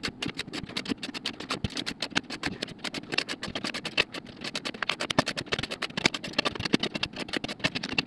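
A click-type torque wrench ratcheting rapidly as it tightens the bolts of a wheel's beadlock ring, a long run of quick, sharp clicks.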